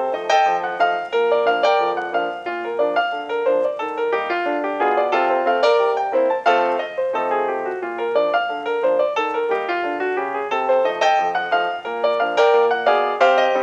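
Background piano music, a steady run of struck notes.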